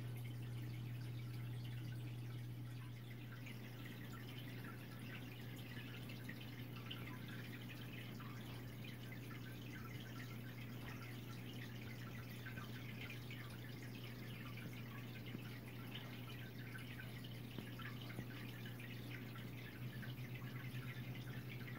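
Aquarium water dripping and bubbling lightly over a steady low hum from a running filter. The hum turns pulsing near the end.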